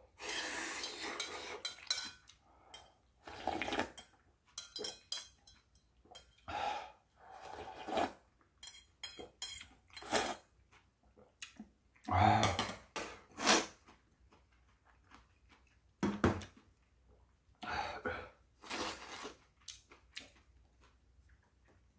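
Metal chopsticks clinking and scraping against a stainless steel bowl, with irregular clatters and knocks of the bowl being handled.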